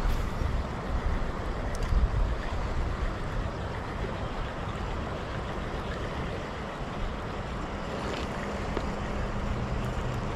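Flowing river water running steadily, with gusts of wind rumbling on the microphone, heaviest in the first few seconds.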